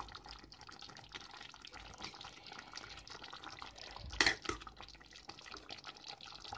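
Thick curry gravy bubbling softly in a stainless steel pan, a steady patter of small pops. About four seconds in there is a brief louder sound of a spoon against the pan.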